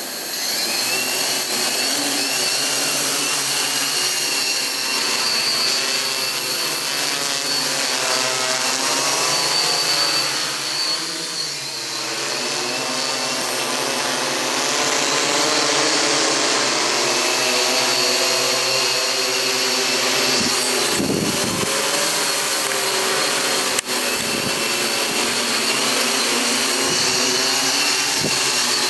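Droidworx octocopter's eight electric motors and propellers running in flight: a steady high whir with a motor whine that wavers slightly in pitch as the craft climbs, hovers and manoeuvres.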